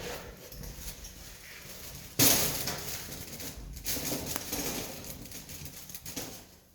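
Wood campfire crackling and popping, with a sudden loud crack about two seconds in that dies away over the next few seconds.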